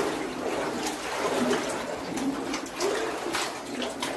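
Water sloshing and splashing around someone's legs as they wade through a flooded mine tunnel, with short low hollow tones and a few sharp splashes in the enclosed passage.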